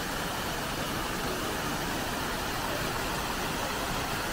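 A multi-jet plaza fountain splashing, its many water jets falling into the basin in a steady, even rush.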